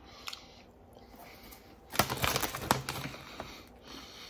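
Goldfish crackers being chewed close to the microphone: a few faint crunches, then about two seconds in a dense run of crisp crunching that fades near the end.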